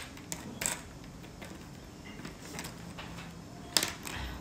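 A marker being handled and stroked on paper: faint scratching with two sharper clicks, one about a second in and one near the end.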